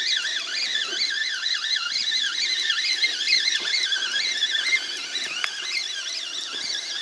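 Birds singing in chorus: many overlapping high, warbling calls that slide up and down in pitch without a break.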